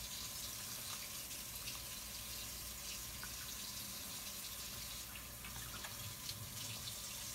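Steady rushing water noise with a few faint clicks.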